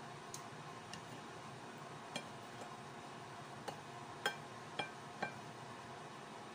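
Slotted serving spoon clinking against a plate as carrots and sweetcorn are served: scattered light taps, then a run of sharper clinks with a brief ring, the loudest between about three and a half and five and a half seconds in, over a steady low hiss.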